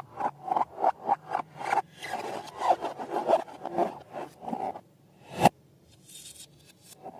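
Hand rubbing and scraping: even strokes at about four a second, then slower, irregular rubbing. After a short pause comes one sharp click, the loudest sound, and the rubbing starts again near the end.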